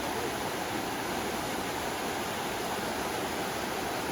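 Brook water rushing steadily.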